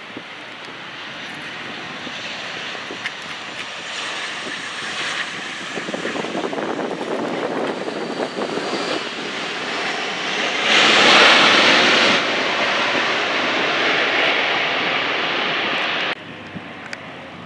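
Fixed-wing airplane passing close, its engine noise building up, loudest about two-thirds of the way in, then cutting off suddenly near the end.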